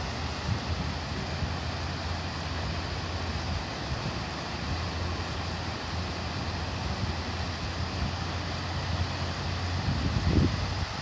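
Large fountain's water jets splashing down into the basin, a steady rushing hiss, over a low rumble; gusts of wind buffet the microphone near the end.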